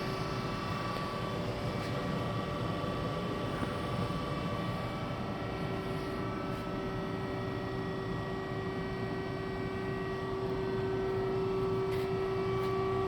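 Steady hum of a powered-up Remedy CNC gang tool lathe and its cooling unit, with one held mid-pitched tone and fainter higher whines, growing slightly louder near the end.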